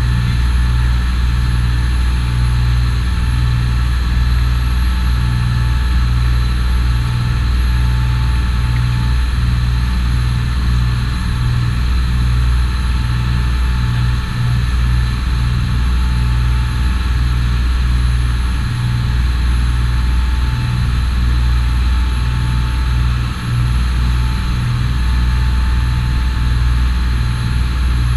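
Fishing charter boat's engine running steadily: a loud, low, fluttering rumble with faint steady whines above it.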